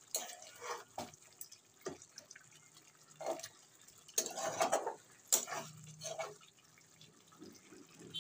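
A spatula stirring chicken karahi in a pan: irregular wet sounds of the thick gravy being turned over, with scrapes and sharp knocks of the spatula against the pan, loudest about four to five seconds in.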